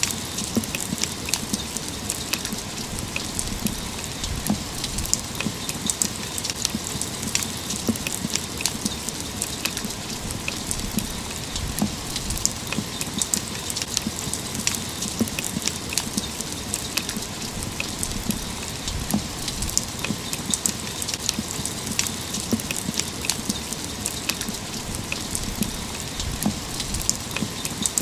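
Steady rain, with many close drops striking a hard surface as sharp, irregular ticks over an even hiss.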